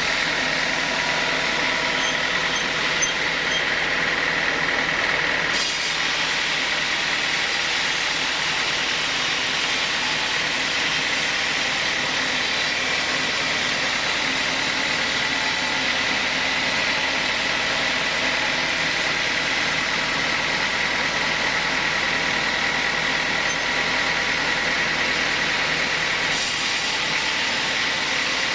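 Sawmill saw machine running steadily, with a constant high whine over a wide, even hiss.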